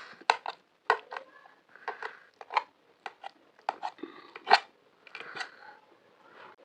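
Close-miked eating: irregular sharp crunches and chewing sounds, a few a second.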